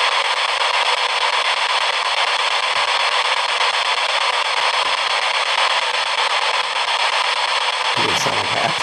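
Spirit box scanning through radio frequencies, giving a steady hiss of radio static, with a short snatch of voice-like sound near the end.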